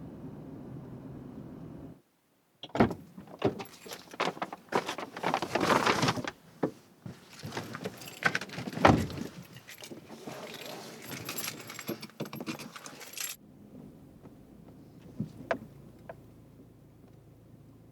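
Metallic jingling and clattering, irregular and busy for about ten seconds, then thinning to a few scattered clicks. It is preceded by a steady low hum that cuts off abruptly about two seconds in.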